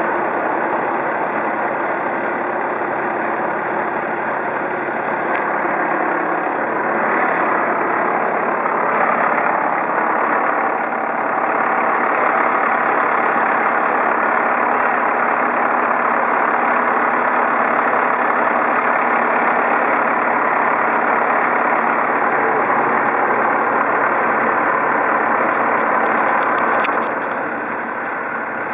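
A heavy engine running steadily. It grows louder about seven seconds in and eases off shortly before the end.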